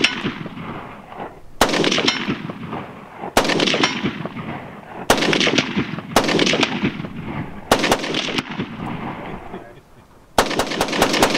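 Rifle shots fired every one and a half to two seconds, about five in all, then a quick string of shots near the end. Each crack is followed by a long rolling echo that fades away.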